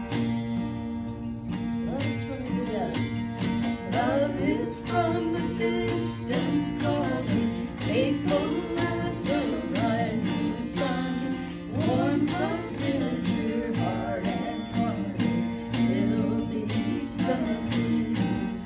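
A mountain dulcimer and an acoustic guitar playing a song together, with steady strummed and picked notes under a flowing melody.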